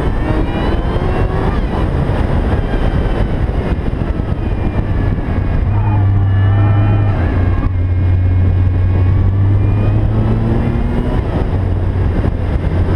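Supercharged Peugeot 205 GTI engine driven hard up a hill climb, its revs rising in several runs as it pulls through the gears.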